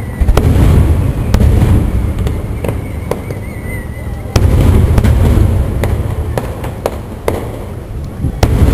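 Aerial firework shells bursting overhead: three heavy booms about four seconds apart, each followed by a long low rumble, with sharp crackles and pops in between.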